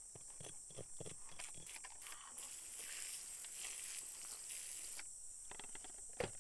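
A hand trigger spray bottle squirting a jet of water onto a stone and wet grit, a hiss lasting about two and a half seconds from about two seconds in. Before it come light scratches and taps of a brush on the stone, and there is a sharp click near the end.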